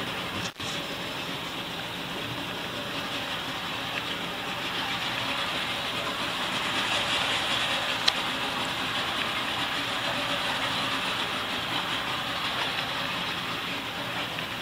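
A catamaran under way at slow speed: a steady rush of wind and water with a low engine hum underneath. The sound cuts out briefly about half a second in, and there is a single sharp click about eight seconds in.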